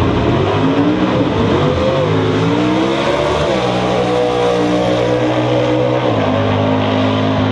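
Two drag-racing cars accelerating hard down the strip at full throttle. Their engine pitch climbs and drops at gear changes, twice: once about three and a half seconds in and again about six seconds in.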